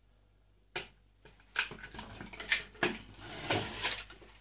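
Pressure cooker lid being unlocked and lifted off: a sharp click, then a run of metal clicks, knocks and clatter as the handle is released and the lid is worked free of the pot.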